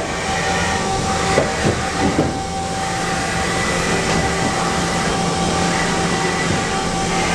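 Haas VF-6SS vertical machining center running under power: a steady mechanical hum with several steady tones. A few brief squeaks and knocks come between about one and two and a half seconds in.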